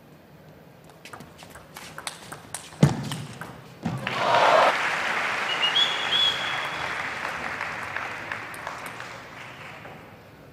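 Table tennis ball clicking off bats and table in a fast rally, with a hard knock about three seconds in. About a second later the arena crowd starts cheering and applauding, loud at first and slowly fading.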